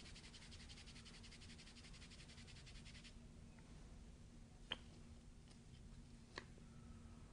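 Faint, fast scratchy rubbing of hands working kinesiology tape on the skin, stopping about three seconds in, followed by two soft clicks.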